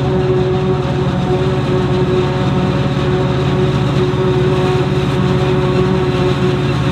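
Heavy diesel farm machinery, a forage harvester and tractors at work chopping maize, running at a steady working speed: a constant deep engine drone with a steady higher whine.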